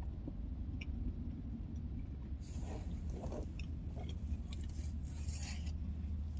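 A person chewing crunchy crackers with summer sausage, the crunching starting about two and a half seconds in and lasting about three seconds, over a steady low hum.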